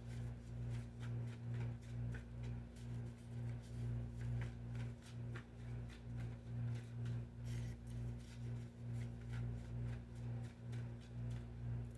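A low steady hum that swells and fades about twice a second throughout, with faint scattered light clicks over it.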